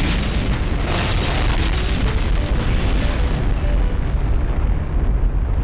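A huge explosion sound effect: one loud, continuous, deep rumbling blast, the pie bomb going off.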